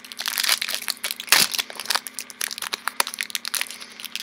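Foil booster-pack wrapper crinkling and crackling in the hands, in dense irregular crackles with one louder crack a little over a second in.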